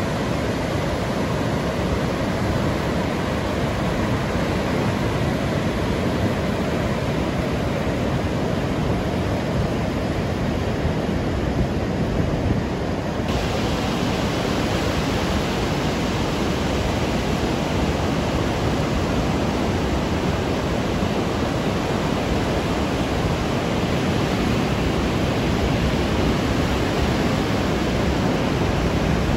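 Continuous wash of ocean surf heard from above the beach, a steady even noise with no single waves standing out. The high end turns a little brighter about halfway through.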